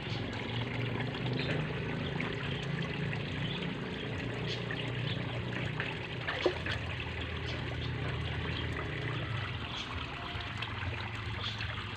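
Water trickling steadily in a koi pond, over a steady low hum, with one sharp tick about halfway through.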